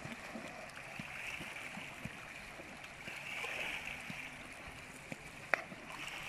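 Small waves lapping and gurgling steadily against a pebble shore. A single sharp slap comes about five and a half seconds in.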